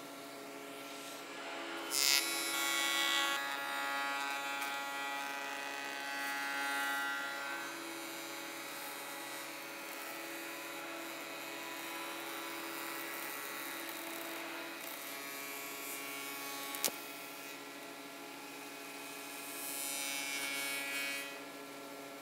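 Martin spindle moulder running steadily while its cutter head shapes a curved chair back leg guided by a template against a bearing ring. The cutting noise rises when the wood meets the cutter about two seconds in, stays loud for several seconds, and comes again near the end, with one sharp click about three-quarters of the way through.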